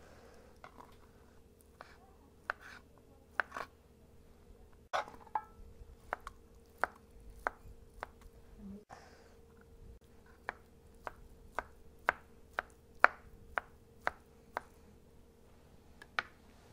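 Knife chopping canned chicken into small pieces on a cutting board: sharp taps, scattered at first, then settling into a steady run of about two a second.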